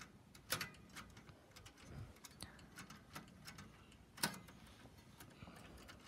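Faint, scattered clicks and ticks from handling an old Smith Corona manual typewriter, with two sharper clicks about half a second in and about four seconds in.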